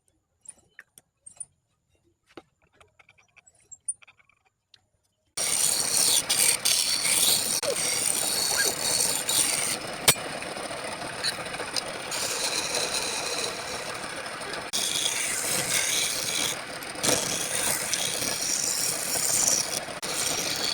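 Woodturning on a lathe: a turning tool cutting and scraping spinning wood, a steady rasping hiss that starts suddenly about five seconds in after a few faint clicks.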